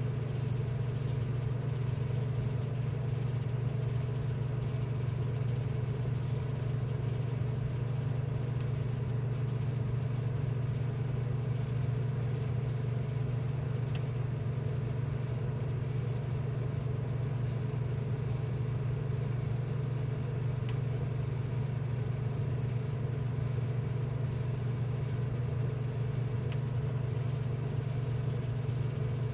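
Steady low machine hum with a few faint steady tones above it, unchanging throughout, with a faint tick about every six seconds.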